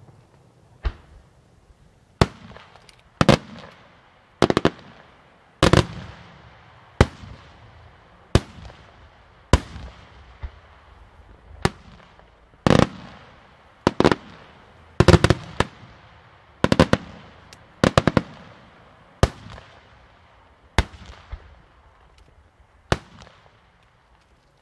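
Fireworks display: aerial shells bursting one after another, a sharp bang about every second, each trailing off in an echo, some coming in quick pairs. The bangs stop just before the end.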